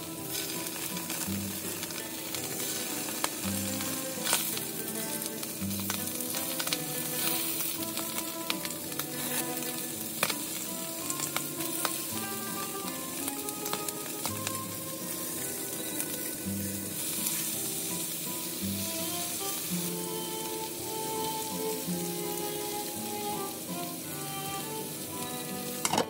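Potato slices and pieces of salted salmon sizzling as they fry in hot oil in a frying pan, a steady crackling hiss. Occasional light clicks come from wooden chopsticks against the pan as the pieces are turned.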